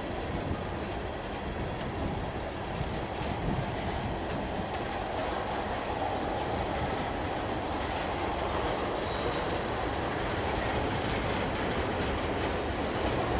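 A freight train of railroad tank cars rolling past. Its wheels give a steady rumble with scattered clicks over the rail joints.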